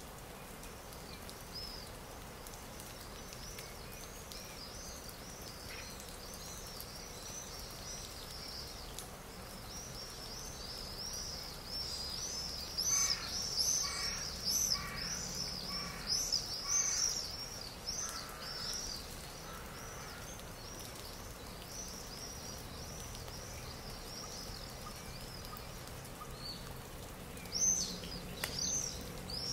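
Stock nature-sound recording of songbirds chirping continuously in quick, high, repeated notes. It swells in the middle, where a run of four or five harsher bird calls sounds about half a second apart. Near the end come a couple of loud, sharp falling notes.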